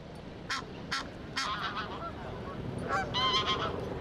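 Honking waterbird calls: a brief call about one and a half seconds in, then a run of repeated calls about three seconds in, over steady outdoor background noise. A few sharp clicks come in the first second and a half.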